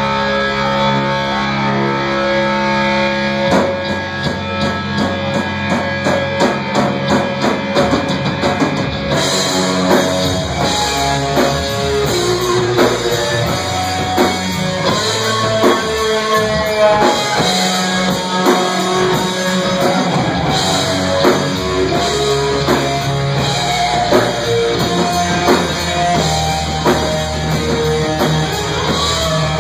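Live rock band playing loud, with electric guitar and a drum kit. After a few seconds of held guitar chords, the full band with cymbals comes in about nine seconds in and keeps a driving rhythm.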